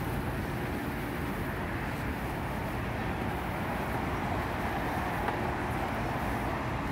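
Steady rumble of street traffic, an even noise with no single vehicle standing out.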